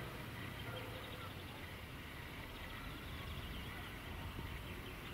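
Faint outdoor background: a low, steady rumble of distant traffic, with a few faint high bird chirps.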